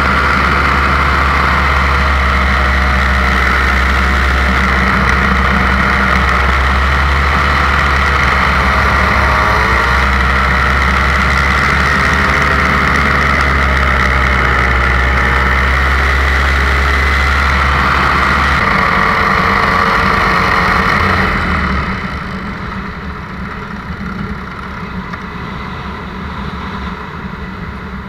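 Paramotor engine and propeller running steadily under power, then throttled back about three quarters of the way through, dropping to a quieter, lower drone as the pilot comes down close to the ground.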